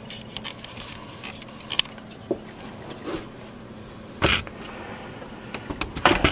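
Scattered light clicks and taps of hands handling equipment, with one louder knock about four seconds in and a few quick taps near the end.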